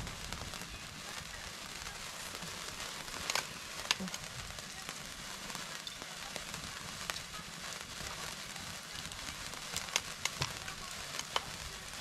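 Fire crackling over a steady hiss, with scattered sharp pops: a few around three to four seconds in and a cluster near the end.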